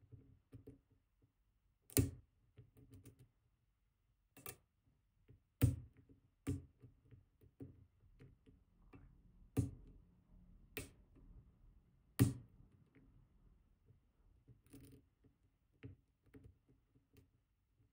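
Sharp metallic clicks and snaps, about eight loud ones at irregular intervals with fainter ticks between, from a hook pick forcefully pushing the barrel-driver pins in the main stack of a Robur 2391 safe deposit box lock cylinder. This is the harder treatment that barrel pins need.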